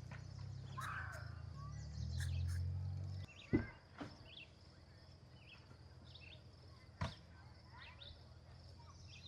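Outdoor evening ambience: scattered short bird chirps over a steady high hiss, with a low rumble that cuts off about three seconds in and two sharp knocks, at about three and a half and seven seconds.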